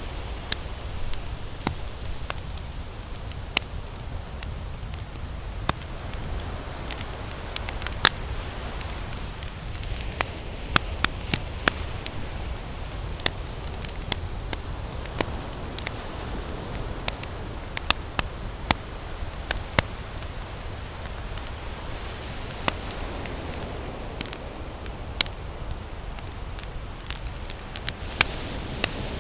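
Campfire crackling, with irregular sharp pops and snaps, over a low steady rumble.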